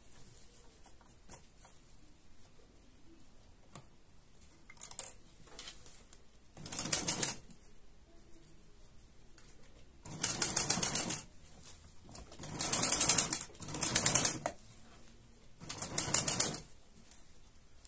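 Sewing machine stitching in five short runs of about a second each, separated by pauses, the first starting about seven seconds in. A light click comes before them.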